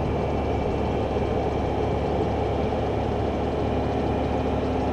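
Fire department ladder truck's diesel engine running steadily, heard from high up on the raised aerial ladder as an even low rumble and rush.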